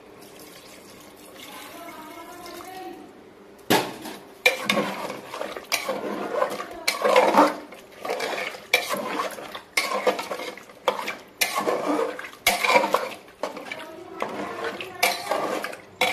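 Water poured from a steel bowl into an aluminium pressure cooker of chicken curry. From about four seconds in, a wooden spatula stirs the curry, knocking and scraping against the cooker's sides in irregular strokes, one or two a second.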